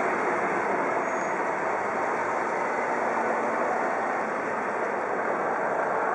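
Eurocopter EC 135 police helicopter flying overhead at low altitude: a steady, even roar.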